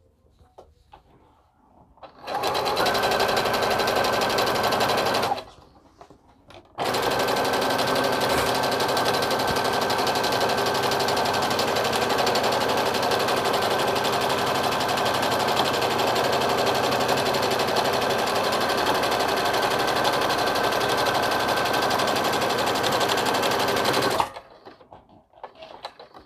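Computerized sewing machine stitching a fabric strip onto a terry-cloth towel. A short run of about three seconds, a pause of over a second, then a long steady run of about seventeen seconds that stops suddenly, followed by faint handling sounds.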